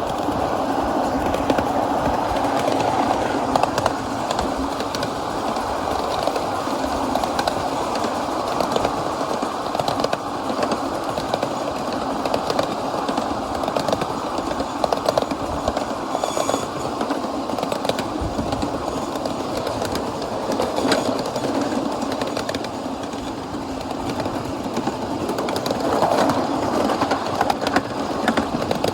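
A 7¼-inch gauge miniature live steam train running along the track, with steady running noise and a constant patter of small clicks.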